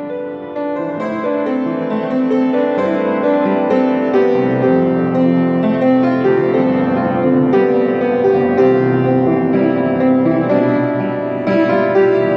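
Instrumental music of held notes changing in slow succession, building up over the first second or so.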